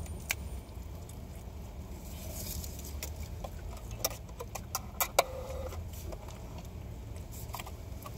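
Scattered clicks and light knocks of takeout food containers and a drink cup being handled, bunched in the middle with one sharp knock about five seconds in, over the steady low hum of a car cabin.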